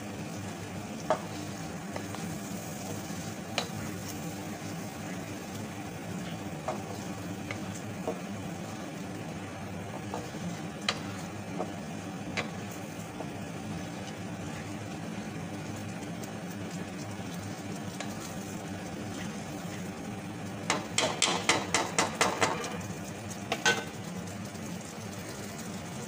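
A spatula stirring mung dal in a frying pan over the heat, with a steady light sizzle. There are occasional single taps of the spatula against the pan, and a quick run of about ten taps four-fifths of the way through.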